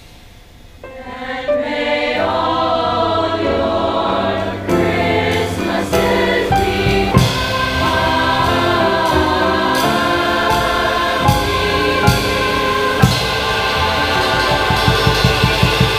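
A large school choir sings in parts with drum-kit accompaniment. After a brief hush at the start the voices come back in, drums join about five seconds in, and a quick, steady drum beat enters near the end.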